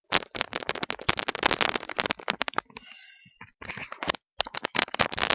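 Rapid, dense crackling and rustling close to the microphone, in two runs with a short break about two and a half seconds in.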